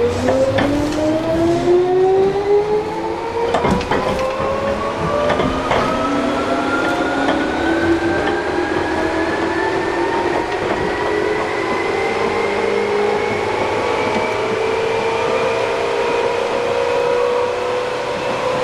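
Tokyu 8500 series train's traction motors and gearing whining loudly under the floor as the train accelerates: a stack of tones glides up steeply at first, then levels off and holds. Heard inside the car at an open gangway end above a motor, with a few sharp clacks a few seconds in; the narrator puts the loudness largely down to the high gear ratio.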